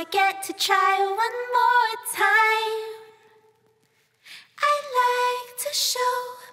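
Background song with a woman singing the melody, breaking off for about a second and a half midway before the singing resumes.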